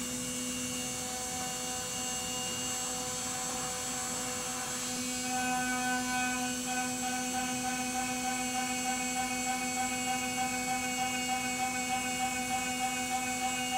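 Steady machine hum and whine, several steady tones at once, with a slight rapid pulsing in level from about five seconds in.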